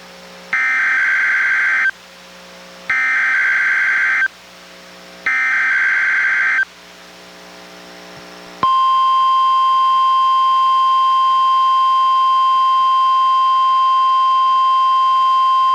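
NOAA Weather Radio test signal from a weather radio receiver: three short bursts of SAME digital header data, each a little over a second long, then a couple of seconds later the steady 1050 Hz warning alarm tone, which holds to the end. It is the alarm sent as a required weekly test, not a real warning.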